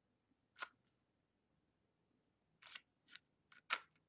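Sharp plastic clicks from a reacher grabber's rotating claw head being worked by hand: one click under a second in, then a quick run of four near the end, the last the loudest.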